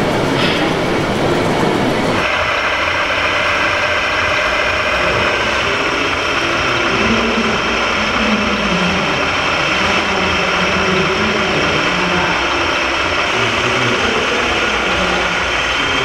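Steady engine-like running sound from RC model trucks, changing abruptly about two seconds in to a steadier, more tonal hum.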